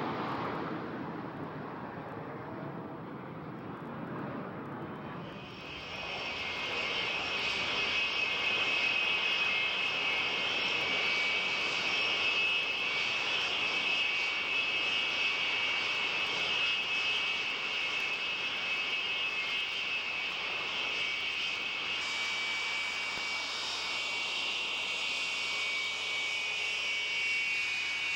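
Aermacchi MB-339 jet trainers' turbojet engines whining steadily as the jets taxi at idle power. A high-pitched whine comes in about five seconds in, after a fainter, lower rush of jet noise.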